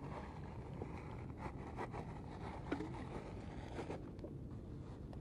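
Steady low wind rumble on the microphone, with a few faint rustles and clicks between one and four seconds in from hands handling cut squid bait and fishing tackle.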